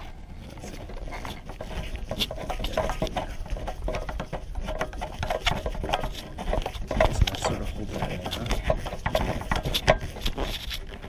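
A long screwdriver turning a Torx T25 screw that locks the condenser to the intercooler, driven down until tight: a run of quick, irregular small clicks and scrapes of the bit in the screw head and the screw working into its mount.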